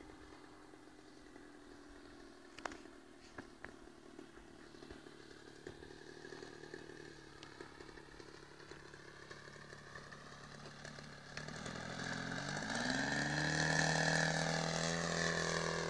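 Small propeller plane's engine running, faint at first and growing steadily louder as it comes closer over the last few seconds, its pitch rising about three quarters of the way in.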